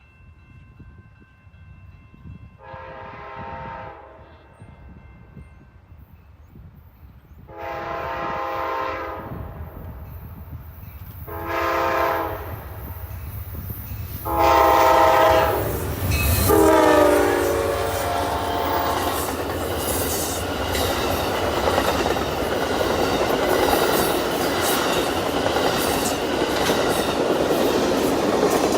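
A diesel locomotive's multi-note air horn blows the grade-crossing signal: long, long, short, then a long final blast that drops in pitch as the locomotive passes. The train then rolls by close with steady rumbling and wheels clattering over the rail joints.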